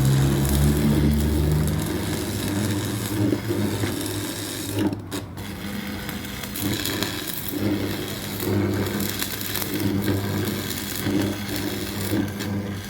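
An electric motor-driven workshop machine running with a steady low hum, with irregular rattling and scraping over it.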